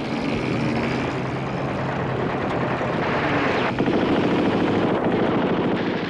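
A loud, steady engine roar, growing a little louder about four seconds in.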